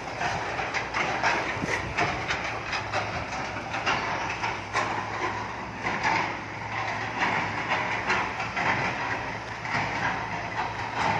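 Diesel excavator working: a steady engine hum under irregular metallic clanking and rattling.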